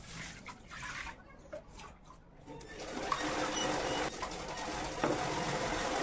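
Water poured from a mug splashing into a clay pot. From about two and a half seconds in, a sewing machine runs steadily and drowns it out.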